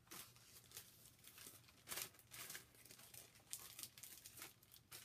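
Faint, irregular crinkling of a clear plastic sleeve holding a cross-stitch chart and fabric as it is handled, with a few louder rustles along the way.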